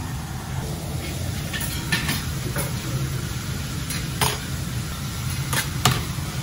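Metal utensils clinking on a steel teppanyaki griddle: about five sharp clinks spread through, the loudest near the end, over steady background noise with a faint sizzle.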